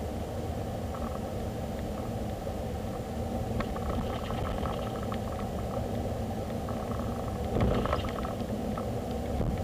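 Car cabin noise picked up by a dashcam: a steady low engine and road rumble, with a few light knocks and a louder bump a little before the end.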